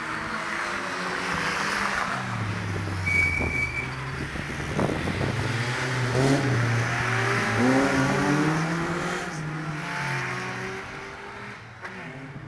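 Race car engines accelerating and passing on the circuit, several engine notes rising and falling in pitch and loudest in the middle. A brief high squeal about three seconds in.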